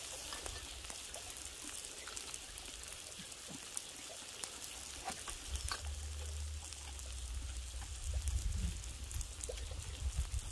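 Pork sizzling on a hot gopdol stone griddle: a steady fine hiss with scattered little pops. A low rumble comes in about halfway.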